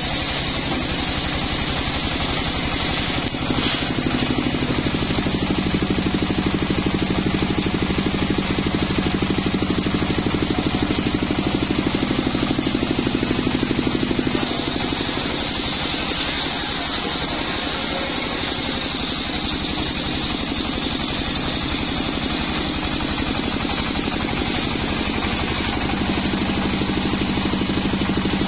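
Large table circular saw ripping a teak log lengthwise: a steady machine drone with a high whine from the blade in the cut. The tone shifts about 3.5 s and again about 14.5 s in as the load on the blade changes.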